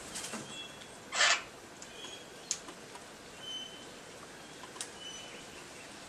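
Wild birds calling around a seed feeder: scattered short, high chirps and whistles and a few sharp clicks, with one loud, brief harsh burst about a second in.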